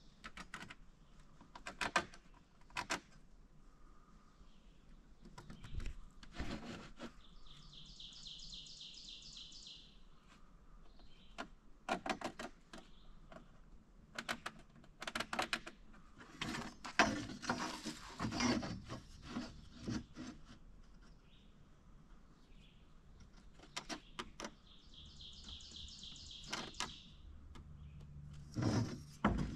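Hand tools being handled on a wooden panel on a sawhorse table while it is measured and marked: scattered knocks, taps and scrapes on wood, with two longer high trilling sounds and birds chirping outdoors.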